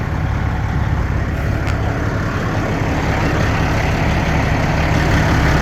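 Semi truck's diesel engine idling steadily with a low, even rumble.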